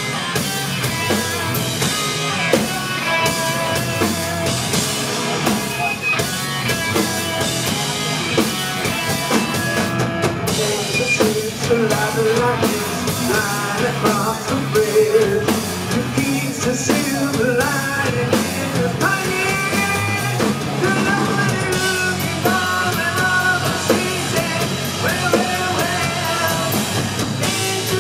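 Live rock band playing through a club PA: drum kit and electric guitar driving the song, with a male lead vocal.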